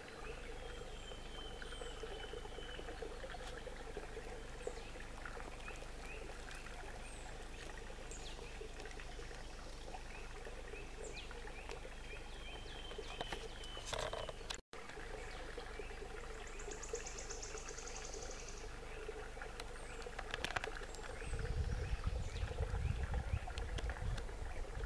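Woodland birdsong: many small birds chirping and calling in short, high notes, with one rapid trill a little past the middle, over a faint trickle of a shallow stream. Low rumbling on the microphone comes in near the end.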